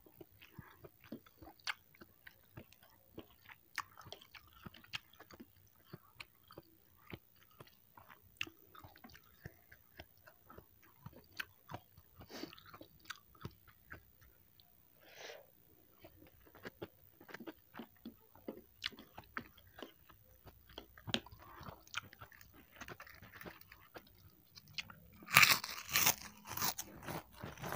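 Close-miked chewing of soft, soupy instant noodles with tofu and greens, made up of many small wet mouth clicks and smacks. Near the end comes a louder stretch of wet sucking and smacking as food is eaten from the fingers.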